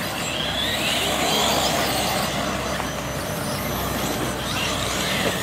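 Electric 1:8 scale off-road RC buggies racing on a dirt track, their motors whining and gliding up and down in pitch as they speed up and slow down, over a steady rush of noise.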